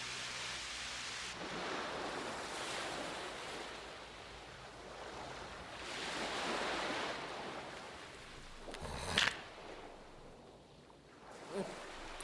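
A rushing, wind-like noise that swells and fades in slow waves, with a brief sharp sound about nine seconds in.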